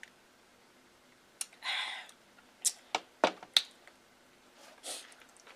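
A short breathy sound, then a few sharp clicks and one low knock as a glass beer mug is set down on the table and food is handled.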